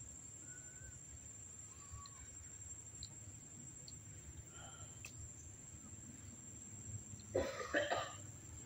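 Quiet outdoor background with a few faint, short bird-like chirps. Near the end comes a brief, louder burst of sound lasting under a second.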